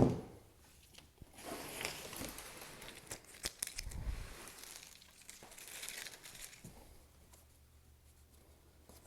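Cardboard shipping box being opened: packing tape slit and torn and cardboard flaps rustling, in two stretches with clicks between. A sharp knock at the very start is the loudest sound, and a dull bump comes about four seconds in.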